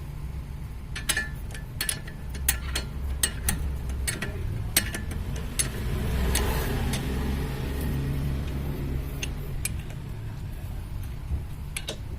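Irregular metallic clicks and clinks of tools and brake caliper parts being handled during reassembly, over a steady low rumble.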